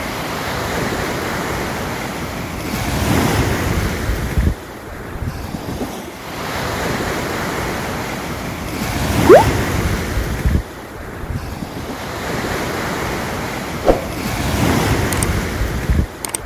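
Sea waves washing in and out, swelling and falling back every five or six seconds, with wind. A short rising whistle-like tone cuts through about nine seconds in.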